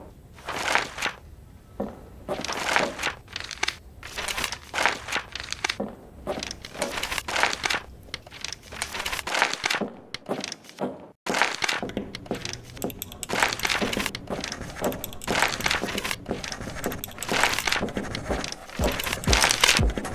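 Pencil eraser rubbing on paper, with paper rustling: a run of short scratchy strokes, irregular, roughly one or two a second, with a brief break about halfway through.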